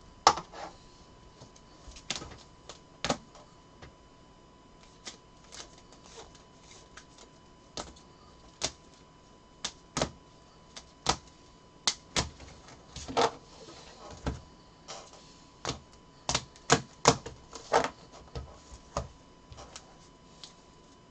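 Trading cards in rigid plastic holders clacking and tapping against each other and a tabletop as stacks are handled and sorted. The sharp clicks come irregularly and are busiest a little past the middle.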